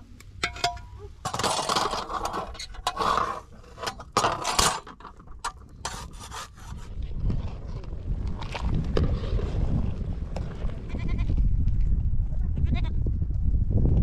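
Goats bleating in loud, irregular calls, over a low rumble that builds through the second half.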